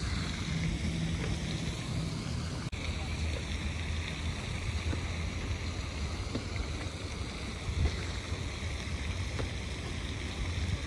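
Wind rumbling on the microphone outdoors, a steady low noise that cuts out for an instant about three seconds in.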